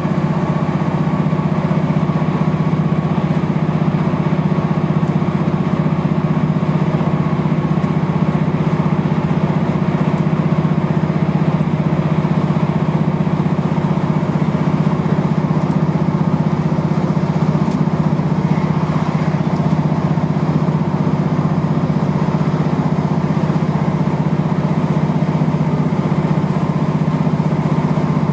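Diesel train at speed heard from inside the passenger carriage: a steady low engine drone over the running noise of the train.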